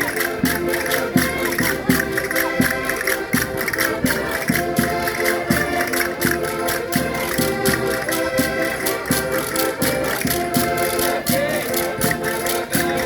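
Concertinas playing a folk dance tune, held reedy chords over a steady, quick beat of rattling percussion.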